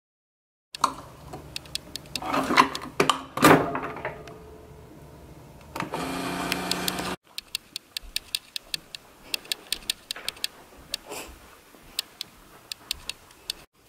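Handling clatter with a few loud knocks, then a Keurig coffee maker humming steadily for about a second and a half after its brew button is pressed, cut off abruptly. A run of light, quick clicks and taps follows.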